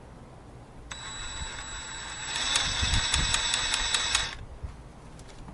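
DeWalt 20V MAX cordless jig saw (DCS331B) running for about three seconds with a high whine, then getting louder with a rapid clicking as the blade, not held properly in its clamp, rattles and clicks.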